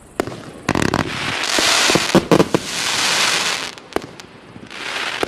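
Multi-calibre firework cake (Pora Chudes FP B114, 186 shots) firing: several sharp reports, then a long noisy burst of about two seconds from about a second and a half in, and a shorter one near the end.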